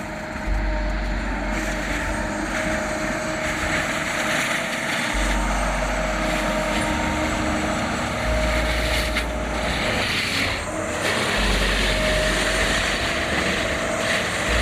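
PrimeTech PT600 forestry mulcher running under load: a steady, noisy machine drone with a constant high tone running through it.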